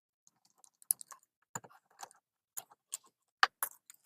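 Irregular sharp metallic clicks and clinks, about eight in a few seconds, of a hand Phillips screwdriver and small screws and lock parts being worked out of a trailer door's deadbolt lock.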